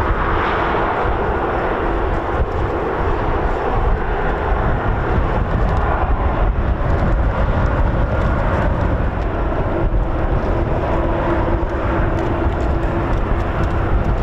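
An RAF RC-135W Rivet Joint's four CFM56 turbofan engines running at taxi power as the aircraft taxis: a steady jet rumble and whine with a held hum that grows a little stronger near the end.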